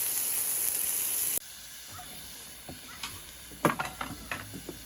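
A loud steady hiss that cuts off abruptly about a second and a half in, followed by quieter background with a few sharp clicks and knocks near the end.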